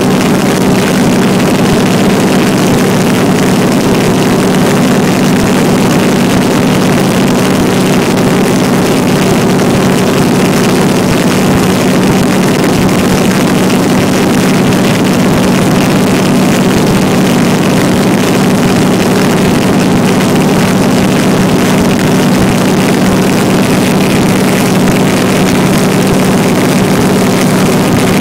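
Bellanca CH-300 Pacemaker's radial engine droning steadily in cruising flight, heard from inside the cabin with loud rushing air noise. The drone holds an even pitch and level throughout.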